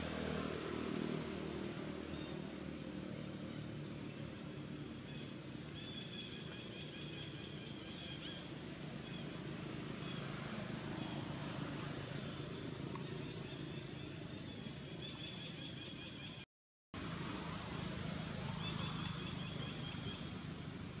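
Steady high insect buzz of outdoor tropical ambience, with a few short chirping trills twice. The sound cuts out completely for about half a second partway through.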